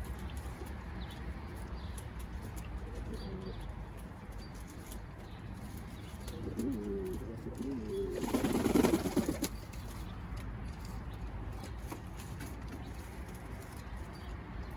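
Pouter pigeons: a low, wavering coo about six and a half seconds in, followed by a burst of rapid wing flapping lasting about a second, the loudest sound here.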